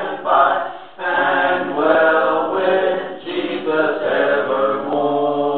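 Slow devotional singing, voices holding long notes and moving from pitch to pitch.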